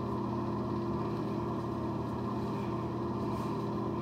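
Steady low mechanical hum with several steady tones in it.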